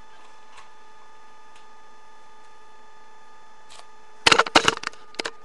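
Steady electrical hum with several fixed whining tones. About four seconds in, a quick loud burst of sharp clicks and knocks from the toy cap-gun revolver being handled, then one more click near the end.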